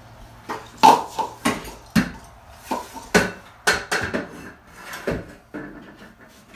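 About a dozen irregular knocks and clatters as a long spirit level and hand tools are handled and set down on a bare wooden subfloor.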